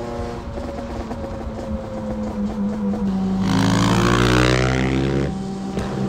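Motorcycle engine running, its note sinking slowly in pitch. About three and a half seconds in, the throttle opens hard and the revs climb for about two seconds, then cut off sharply.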